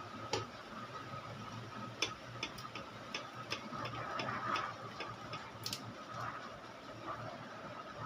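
Light, irregular clicks and taps of hand tools on an amplifier's circuit board while its shorted bridge rectifier is being replaced, over a faint steady high hum.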